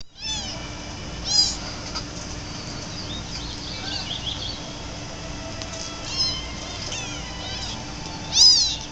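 Two-week-old kittens mewing: a handful of short, high-pitched mews, the loudest one about a second in and another near the end, over a faint steady hum.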